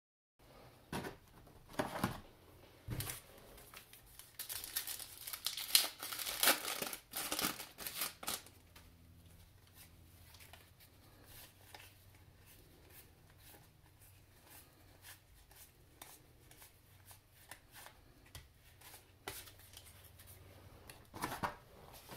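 A pack of 1990–91 Pro Set hockey cards being torn open, its plastic wrapper crackling and crinkling, densest between about 4 and 8 seconds in. Then the cards are slid and flicked through by hand in soft, scattered clicks, with another rustle near the end.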